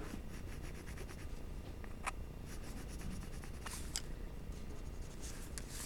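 Graphite pencil drawing on paper: a run of short scratchy strokes, with a few sharper ticks about two seconds and four seconds in.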